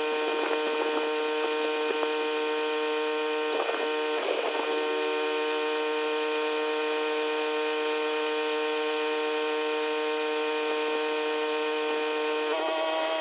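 Pressure washer engine running steadily, sped up by the time lapse into a high-pitched buzzing drone, with a short burst of hiss about four seconds in. The pitch steps up briefly near the end.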